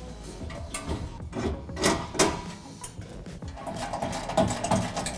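Metal knocks and clanks as the steel bumper is fitted against the truck's frame, then from about three and a half seconds a hand ratchet clicking quickly as a bolt is run in through the storage compartment.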